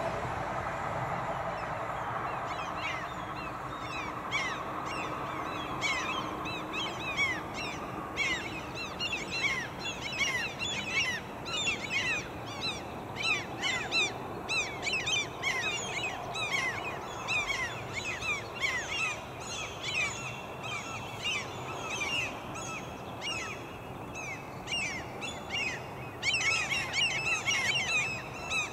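Birds calling, many short falling chirps repeated rapidly and growing busier near the end, over the rumble of the train fading out during the first several seconds.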